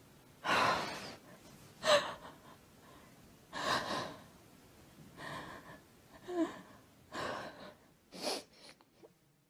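Elderly woman crying behind her hands: about seven gasping, sobbing breaths at irregular intervals, two of them with a short whimper in the voice.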